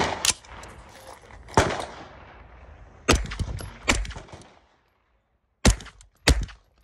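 Suppressed 9mm gunshots from a Freedom Ordnance FX-9 blowback short-barreled rifle fitted with a solvent-trap suppressor. A few shots come in quick succession about three seconds in, then two sharp shots half a second apart near the end. Two earlier sharp reports come in the first two seconds.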